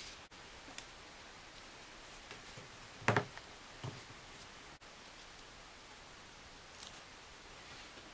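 Small wooden pieces handled on a wooden workbench: one knock about three seconds in and a few faint clicks, over quiet workshop room tone.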